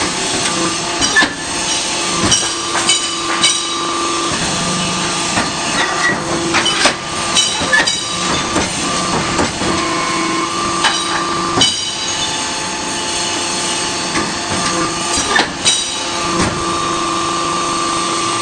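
DF10-10 automatic hydraulic interlocking brick machine cycling: a steady hydraulic hum with a whine that comes in and drops out every few seconds as it presses, and scattered sharp metal knocks from the mould and pallets.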